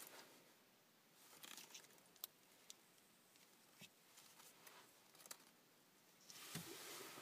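Near silence broken by faint handling noise: a few light clicks and soft rustles as a flashlight stun gun is turned over in the hand against denim, with a longer rustle near the end.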